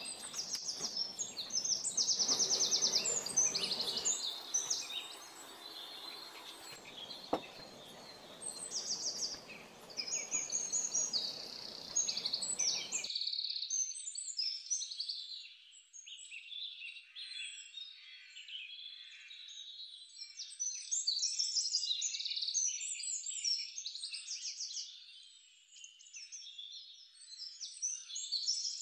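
Many small birds chirping and twittering in a dense chorus of quick, high notes, some in rapid trills. A faint low background hiss cuts off abruptly about thirteen seconds in, leaving the chirping alone.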